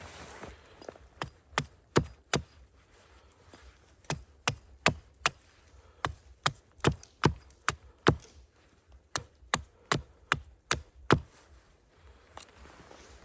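Wood being chopped: sharp, quick strikes, about two or three a second, in four runs of four to seven strikes with short pauses between.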